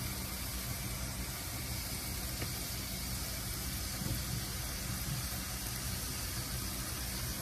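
Pork chops sizzling steadily on a hot electric griddle, with a low steady hum underneath.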